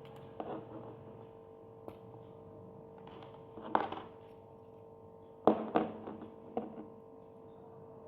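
Handling noises as a small screwdriver set is opened: scattered clicks and short rattles, the loudest about four and five and a half seconds in, over a steady background hum.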